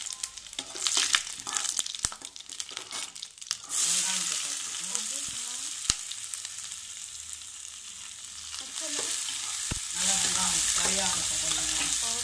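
Whole spices and dried red chillies crackling in hot oil in a nonstick kadai, stirred with a steel spoon. A little under four seconds in, chopped onions go into the oil and a loud steady sizzle starts; it swells again near the end as the onions are stirred and fried. A couple of sharp taps of the spoon on the pan.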